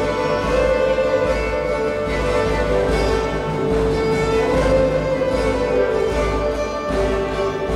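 Medieval instrumental dance music played live on period instruments: bowed fiddles carry the melody over sustained notes, with plucked strings alongside.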